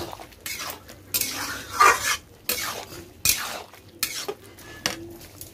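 Long metal spatula scraping and knocking against a metal kadai while stirring a wet, chunky curry of diced white pumpkin, in about seven irregular strokes.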